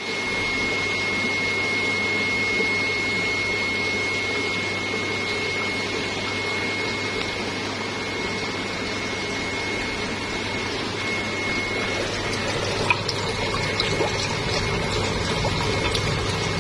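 Steady hum and rushing water of aquarium pumps and aeration in guppy tanks, with a thin steady whine that drops out about three-quarters of the way through. After that come a few light clicks and taps, the sharpest one just after the whine stops.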